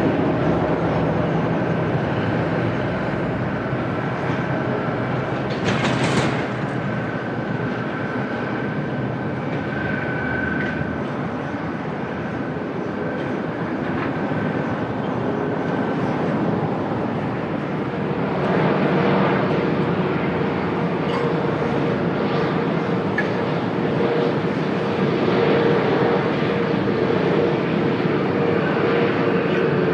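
Jet airliner engines running at an airport, a steady rumble and whine under gusty wind noise; about two-thirds of the way through a steady whine grows stronger.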